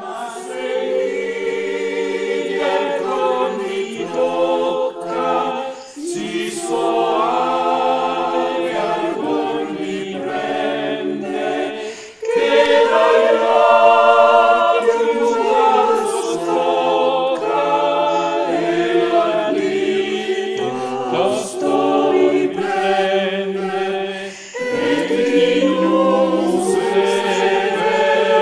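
A choir singing in harmony, entering from silence at the very start. It sings long phrases with brief breaks between them.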